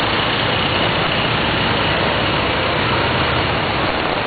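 Engines of jeepneys and a van running as they drive through floodwater. Over them is a steady hiss of flowing water and rain.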